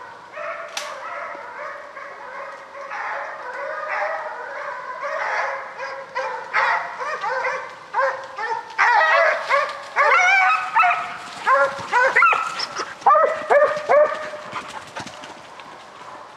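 Several deer hounds baying and barking while running a deer drive, their overlapping calls growing louder and coming in quick succession from about nine seconds in.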